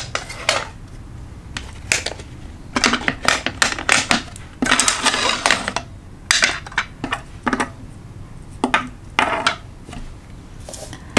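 Clear plastic pen cases handled on a wooden tabletop: a run of sharp clicks, taps and knocks as the cases are opened, shut and set down, with a longer scraping stretch about five seconds in.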